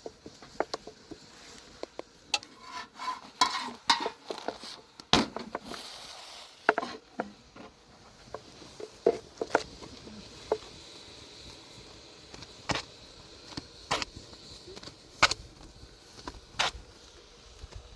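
Irregular clicks and knocks, a few of them sharp and loud, over a faint steady hiss.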